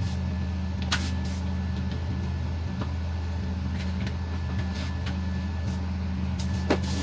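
Steady low appliance hum with a faint high whine, and a few light clicks of aluminium foil pans being handled, about a second in and near the end.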